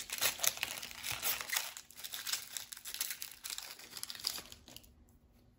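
Foil Pokémon booster pack wrapper crinkling and tearing as it is handled and opened by hand, a dense run of crackles that stops about a second before the end.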